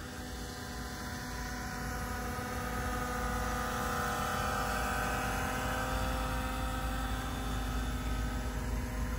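Small quadcopter drone's propellers humming steadily, growing louder from about three seconds in as it flies nearer.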